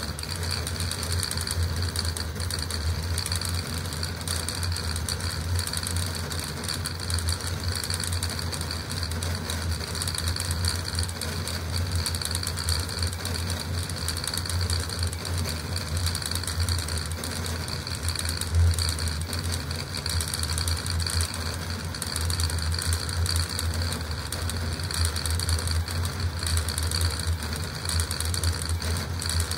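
Custom CoreXY 3D printer printing a Benchy at high speed (around 600 mm/s with 80k acceleration): its stepper motors and belts buzz and whir in quick, constantly changing bursts as the print head darts back and forth, over a steady low hum.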